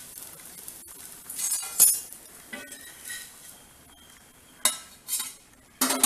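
A metal spatula scrapes under a rolled dosa on a cast-iron tawa, then clinks several times against a stainless steel plate as the dosa is slid onto it. The last sharp clink rings briefly.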